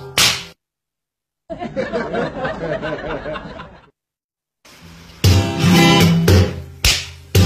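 Strummed acoustic guitar music that cuts out about half a second in. In the gap, a couple of seconds of a different sound with a wavering pitch play. The guitar strumming comes back loud in the last couple of seconds.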